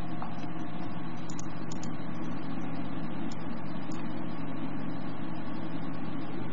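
Steady low hum under an even hiss, unchanging throughout.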